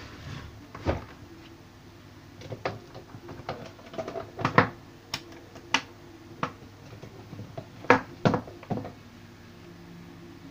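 Irregular clicks and knocks from hands handling the opened CRT television's plastic cabinet and parts, about a dozen sharp taps with the loudest about halfway through and again later on.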